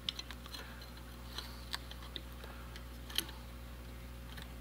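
Screwdriver turning a screw out of the cast-iron casting of a Coleman Air-O-Gas cabin stove, its square nut held against the casting: a few light, irregular metal clicks over a low steady hum.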